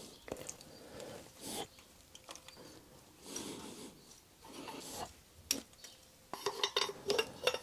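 Screwdriver scraping and levering against the aluminium cylinder-head cover of a Yamaha Virago 535, stuck on with gasket sealer, giving scattered scrapes and clicks. Near the end comes a quick run of sharp metal clicks as the cover is worked loose by hand.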